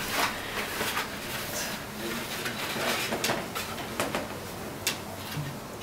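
Loose sheets of paper artwork rustling as they are handed over and leafed through, with sharp crackles of paper now and then.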